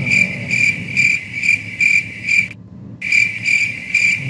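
Car's electronic warning chime beeping rapidly and steadily, about two to three high beeps a second, breaking off briefly about two and a half seconds in and then starting again.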